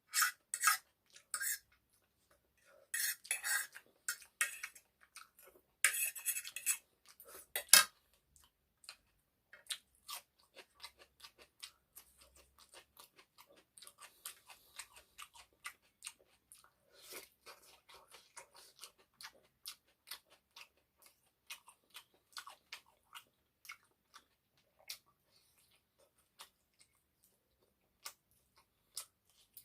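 Close-miked eating of egg noodles with chicken curry: for the first several seconds, louder scraping and clinking of cutlery against the dish, then a long run of quick, fainter chewing sounds.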